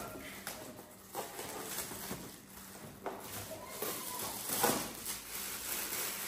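Shiny plastic gift wrapping crinkling and rustling in a few short bursts as it is pulled off a box.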